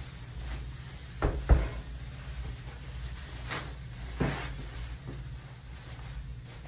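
Knocks and bumps as a folded pink folding bed is handled and set down: two sharp knocks close together about a second in, another about four seconds in, and a few lighter ones. Light rustling of the plastic wrapping as it is pulled off and tossed.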